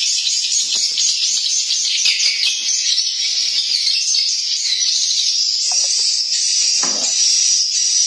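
Dense, steady high-pitched chirping of swiftlets inside a swiftlet house, with a brief low thump about seven seconds in.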